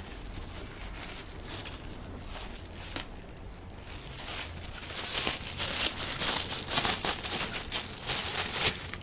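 A Shiba Inu mouthing and pawing a thin plastic garbage bag: rapid crinkling and rustling of the plastic, getting louder about halfway through.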